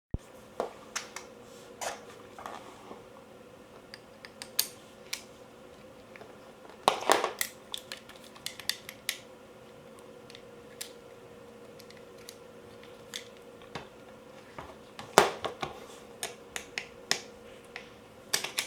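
Scattered clicks, taps and light knocks of a Cyma CM040 airsoft AK's parts being handled and taken apart, with louder clattering about seven seconds in and again about fifteen seconds in, over a faint steady hum.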